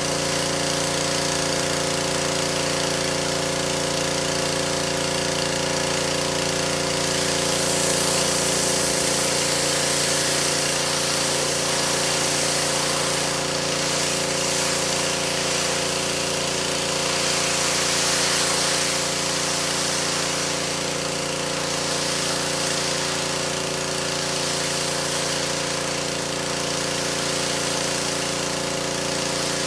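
Pressure washer running steadily: a constant machine hum under the hiss of the water spray, which grows louder for a while in the middle and again a little later.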